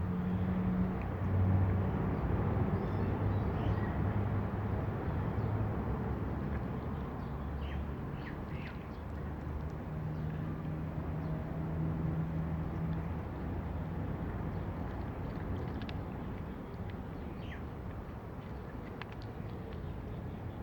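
A low, steady engine-like hum that wavers in pitch, with short, high bird chirps in the middle and again near the end.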